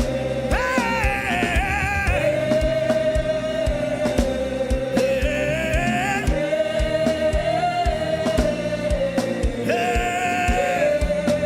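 Gospel worship music: long held sung notes that glide slowly in pitch, over a steady low beat.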